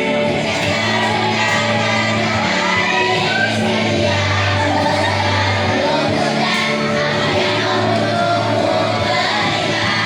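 Several voices singing together over a backing track with sustained low notes.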